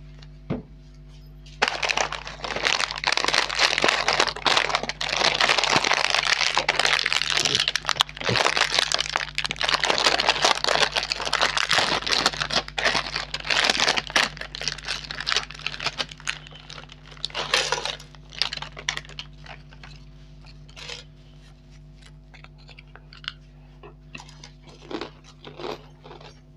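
Plastic-foil potato chip packet being torn open and crinkled: loud, dense crackling from a couple of seconds in for about fifteen seconds, then thinning to scattered rustles and crackles.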